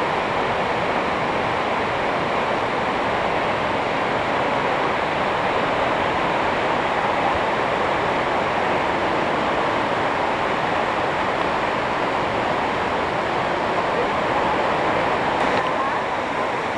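A flash-flooding river: fast, muddy floodwater rushing past in a steady, unbroken torrent.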